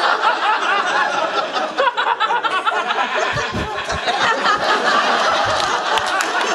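Live audience laughing, many people at once, loud and sustained.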